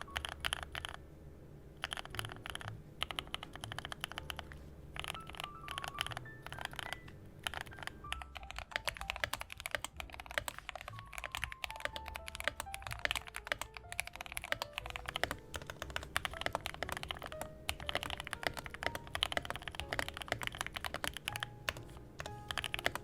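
Typing on a Yunzii KC-68 hot-swap mechanical keyboard fitted with Gateron linear switches, in quick runs of keystrokes broken by short pauses. Soft background music plays underneath.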